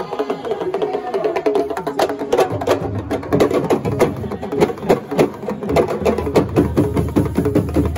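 Sabar drum ensemble playing fast, interlocking stick-and-hand strokes on tall Senegalese sabar drums, with sharp cracking hits over a dense rhythm. Deeper drum tones fill in the bottom after a couple of seconds.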